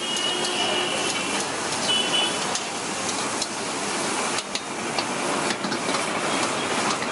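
Busy street ambience: steady traffic noise, with a couple of brief high-pitched tones near the start and about two seconds in.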